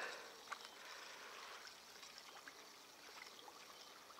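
Near silence: a faint, steady trickle of water with a few light clicks, as a hooked crucian carp is drawn in through the shallows.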